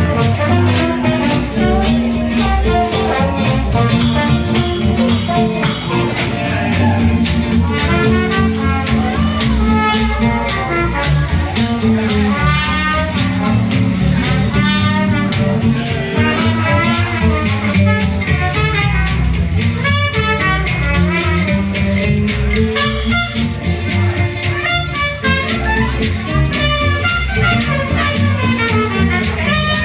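Small jazz band playing a swing tune: horn melody lines over a steady beat and upright bass.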